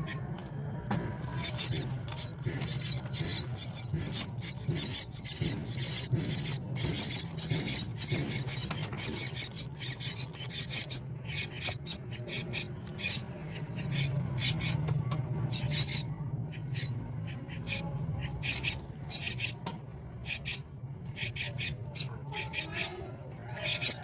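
Myna nestlings begging with harsh, rasping, high-pitched calls in quick succession, spacing out in the last third.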